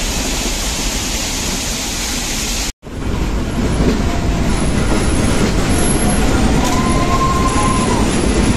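A steady rushing noise, then after an abrupt cut about three seconds in, a Nilgiri Mountain Railway train running on its rails, with faint wheel squeal coming and going, clearest near the end.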